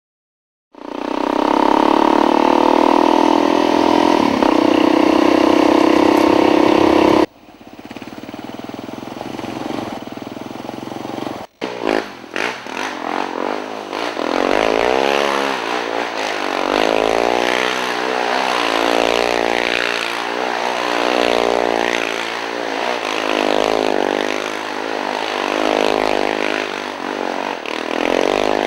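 Quad bike engine revving on a dirt track. It opens with a loud, steady held note for about six seconds. After a break it rises and falls in pitch over and over as the throttle is worked, with tyre scraping and clatter.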